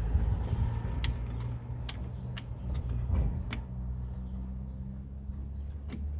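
A few sharp metallic clicks and taps as a brake adjuster is handled and seated in a drum brake backing plate, over a steady low rumble.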